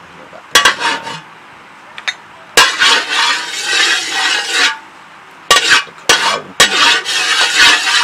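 Metal spatula clanking and scraping against a metal wok of hot oil while stirring. There are sharp clanks about half a second in, again near two and a half seconds, and three in quick succession from about five and a half seconds. Each is followed by a stretch of rasping scraping.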